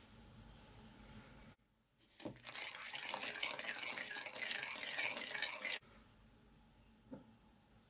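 Metal teaspoon stirring baking soda into kefir in a ceramic bowl, scraping and clinking against the bowl for about three seconds before stopping suddenly. A single light knock follows near the end.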